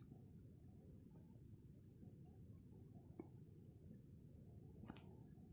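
Near silence: a faint, steady high-pitched trill of crickets over low room noise, with two faint clicks a little after halfway and near the end.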